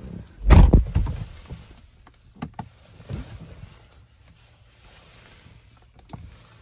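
Someone climbing into a car's driver seat: a loud low thump with rustling about half a second in, then a few light clicks and knocks.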